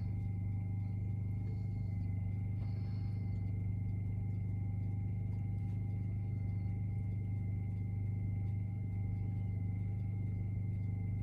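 Honda Pioneer 1000 side-by-side's engine idling steadily, a constant low hum with a faint steady whine above it.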